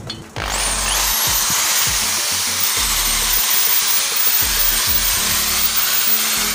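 Electric hammer drill boring into a concrete wall. It starts about half a second in: the motor whine rises as it spins up, then a loud, steady grinding runs on, and the whine begins to fall as the motor winds down right at the end.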